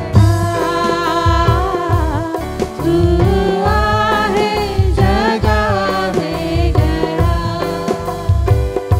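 Live devotional worship song: women's voices singing into microphones over keyboard chords and regular strokes of a dholak barrel hand drum.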